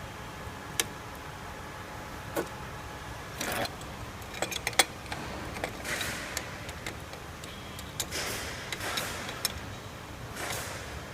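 Metal parts of a waterjet cutting head's on/off valve clicking and clinking as they are handled and taken apart with tools, over a steady low hum.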